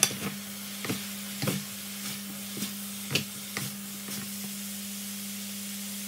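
Shredded vegetables and sliced meat sizzling as they are stir-fried in a nonstick wok. Wooden chopsticks and a spatula toss them, knocking and clicking irregularly against the pan, most often in the first few seconds, over a steady low hum.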